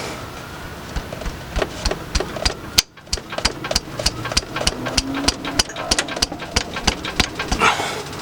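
A ratchet wrench clicking in quick, even strokes as it is worked back and forth on a tight oil drain plug.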